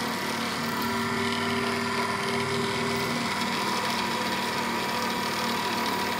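Small bench pillar drill running steadily with a high whine as it drills a 1.5 mm hole into a brass pin.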